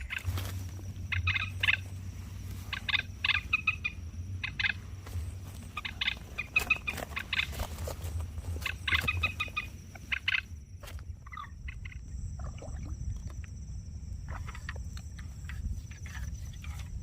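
Common moorhen calls: groups of rapid clucking pulses repeated every couple of seconds, growing fainter and sparser after about ten seconds.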